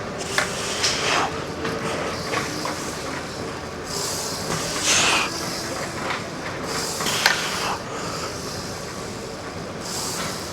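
Gym weight set under way: hissing breaths roughly every two to three seconds, with a few sharp clicks from the equipment, over faint steady background tones.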